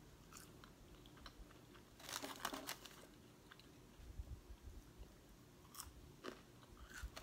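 Faint, crunchy chewing of food, in short clusters of crackly clicks about two seconds in and again from about four to six seconds.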